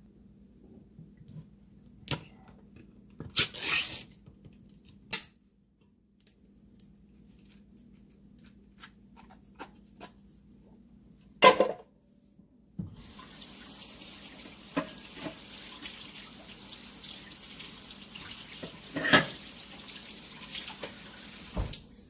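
Tap running into a sink for about nine seconds, a steady splashing hiss that stops abruptly near the end. Before it come scattered knocks and clatter of things being handled, with one sharp knock about halfway through.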